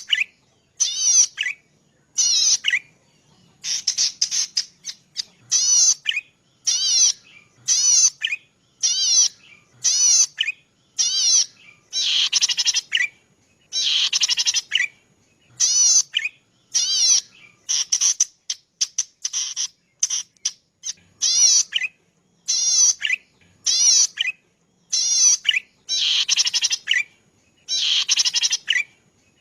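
Cici padi (prenjak padi) singing: short, high, buzzy trilled phrases repeated about once a second, with a few longer trills in the middle.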